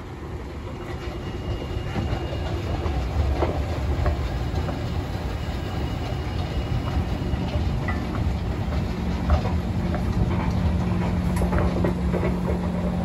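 Outdoor escalator running while being ridden up: a steady low mechanical rumble with irregular clicks from the moving steps. A steady low hum joins about halfway through.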